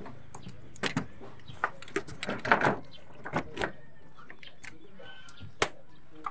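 Irregular short clicks and knocks, some in quick clusters, over a steady low background noise.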